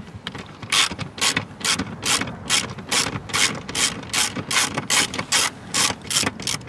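Hand ratchet with an 8 mm socket backing out a screw, its pawl clicking in short rasps as the handle swings back and forth, about two or three strokes a second, starting about a second in.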